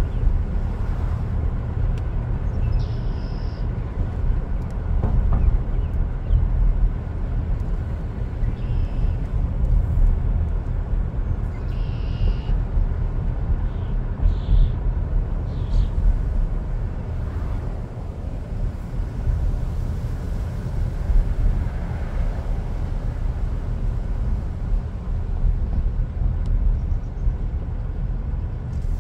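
Outdoor ambience: a steady low rumble, with a few short high chirps in the first half.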